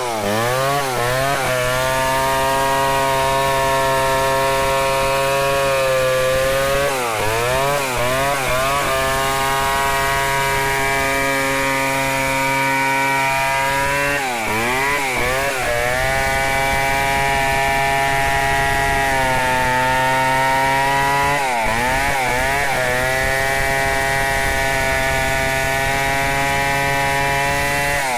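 Stihl 070 two-stroke chainsaw running at high revs under load, ripping lengthwise along a log. The engine note holds steady and wavers down and back up several times as the load on the chain changes.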